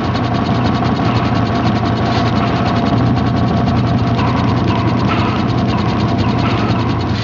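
Loud, steady rapid mechanical clatter, like a ratchet or gear mechanism running, with a constant low hum.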